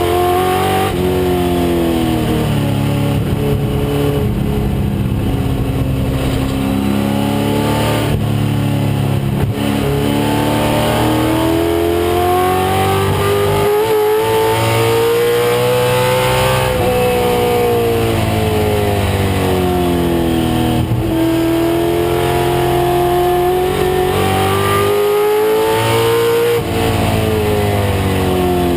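A 1996 Ford Mustang race car's engine running hard at racing speed, its pitch climbing under acceleration and falling away when the driver lifts, several times over.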